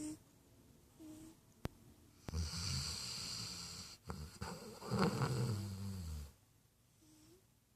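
A sleeping pet snoring: one long snore of about four seconds, with a low rattle and a breathy hiss. Before and after it come short, thin whistling tones on the quieter breaths.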